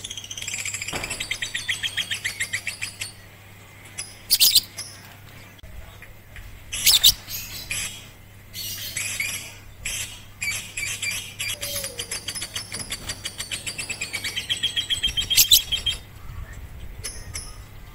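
Lovebird singing: long runs of fast, high chattering trills, broken by a few loud, sharp shrill calls.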